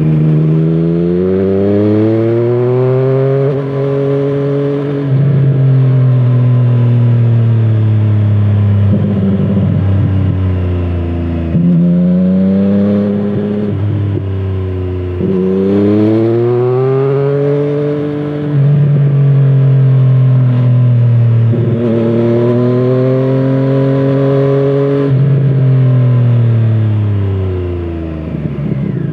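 A Triumph Street Triple 765RS's three-cylinder engine through a carbon Scorpion Serket Taper exhaust, heard from the rider's seat. The revs climb, drop sharply at an upshift and then sink as the throttle is eased, and this repeats about three times.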